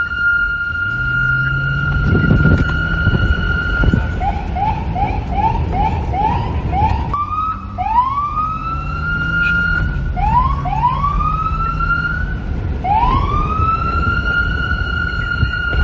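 NYPD police car's electronic siren. It holds one steady tone, then about four seconds in breaks into quick rising chirps, two or three a second, then slower rising swoops that each level off, and near the end settles back into the steady tone.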